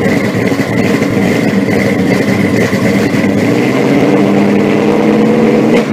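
A car engine idling steadily, with a steady high whine running alongside the engine note.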